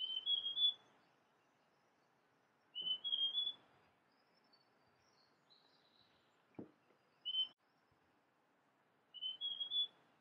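Large niltava (Niltava grandis) singing: three short phrases of a few clear whistled notes climbing in pitch, a few seconds apart, with a single short note between the second and third.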